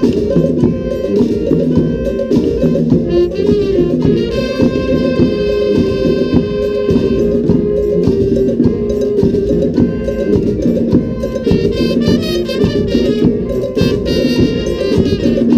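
A brass-and-saxophone street band playing an Afrobeat tune over steady hand percussion. The horns hold long notes about four seconds in and again near the end.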